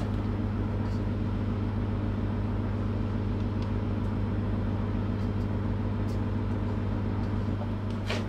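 Steady low electrical hum of a running kitchen appliance, even throughout, with a few faint light clicks.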